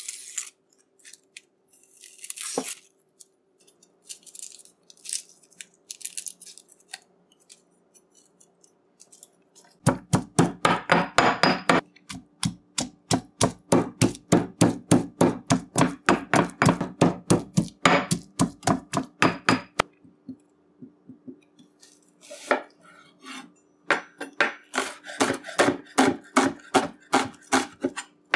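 A few light knife clicks while garlic is peeled. Then a pestle pounds garlic, hot pepper and geera seeds in a stone mortar for about ten seconds: heavy, even strokes at about four a second. Near the end a chef's knife chops an onion on a wooden board in a quick run of strokes.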